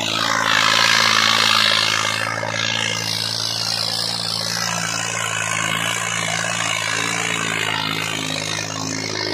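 John Deere 5210 tractor's three-cylinder diesel engine running steadily under load, dragging a weighted disc harrow through soft tilled soil, with a burst of hissing noise in the first couple of seconds.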